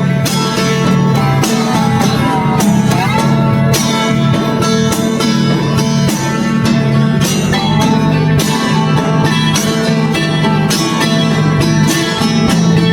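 Upbeat bluegrass-style music with fast-picked guitar and banjo and a steady beat.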